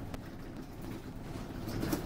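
Alexander Dennis Enviro200 MMC single-deck bus driving, heard from inside the cabin: a steady low engine and road rumble, with a few light rattles of the interior fittings, one just after the start and a pair near the end.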